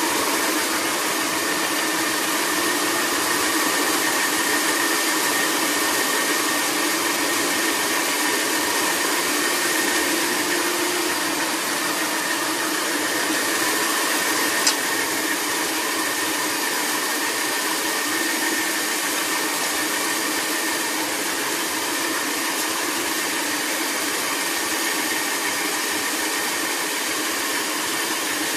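Stone bead fine milling machine running: a steady hissing grind of gemstone beads being rounded in its bowl, with a faint steady whine. A single sharp click about halfway through.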